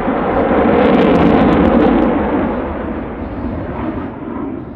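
Jet noise from a CF-18 Hornet's twin engines as it passes, swelling to a peak with a rapid crackle about a second in, then fading away.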